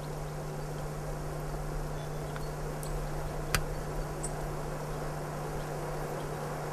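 Steady low hum under an even hiss, with a few faint clicks and one sharper click about three and a half seconds in.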